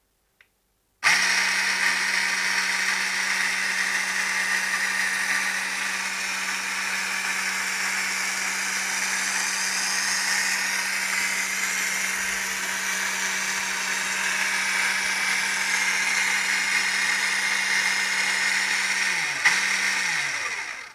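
Small electric motor of a homemade mini lathe switched on with a sudden start, running steadily at speed with a steady hum and a high whir. Near the end a click, and the motor winds down, its hum falling in pitch until it stops.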